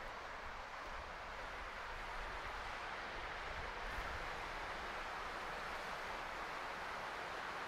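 Steady outdoor background noise: an even hiss with a low, unsteady rumble underneath.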